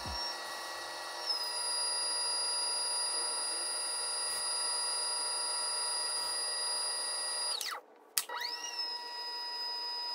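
Electric pottery wheel motor whining steadily as the wheel head spins. Near eight seconds it winds down quickly to a brief stop, then speeds straight back up and runs on steadily.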